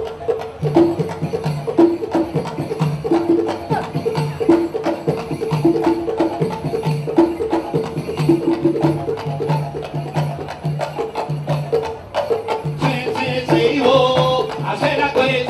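Batá drums playing a steady, repeating Afro-Cuban rhythm for orisha dance, the low drum strokes pulsing evenly. Singing comes in over the drums near the end.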